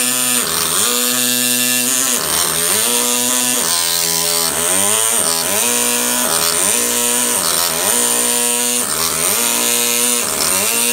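Pneumatic carving hammer driving a chisel into a stone block: a steady, loud buzz whose pitch sags and recovers about every second or so as the chisel bites and eases off.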